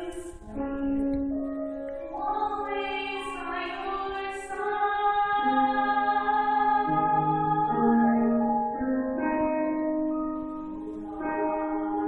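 A woman singing a slow solo song, holding long sustained notes, with piano accompaniment.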